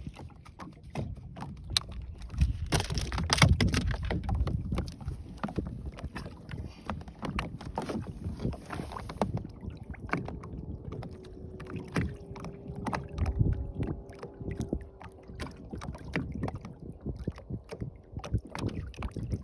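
Knocks, clicks and rattles of handling aboard a small fishing boat over a low rumble of water and wind on the microphone. A steady hum comes in for a few seconds about ten seconds in.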